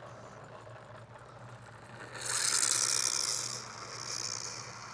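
Custom four-hub-motor R/C car fitted with a drift sleeve, driving on asphalt: a high, rattling hiss from its wheels and drivetrain. It rises about two seconds in, lasts just over a second, then comes again more weakly near the end.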